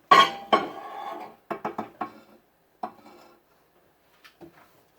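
A mixing bowl and spoon clattering as the bowl of hot peanut brittle mixture is handled and set back in the microwave: a series of sharp knocks with brief ringing, the loudest two in the first second.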